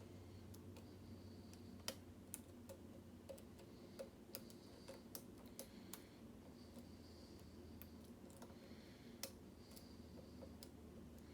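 Faint, irregular light clicks and ticks of a hook pick working the pins of a mortise lock cylinder under tension, over a steady low hum.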